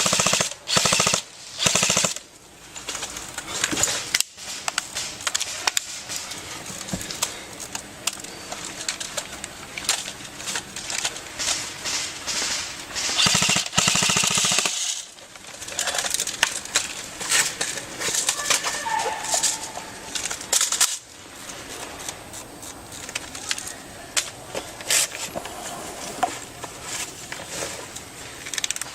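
Airsoft guns firing: rapid bursts of shots and scattered single shots, with a long dense burst about halfway through.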